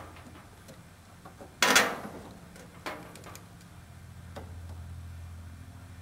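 Faint clicks and handling noise as multimeter test leads are set on the terminals of a furnace hot surface igniter's plug, with one louder brief rustle about two seconds in, over a steady low hum.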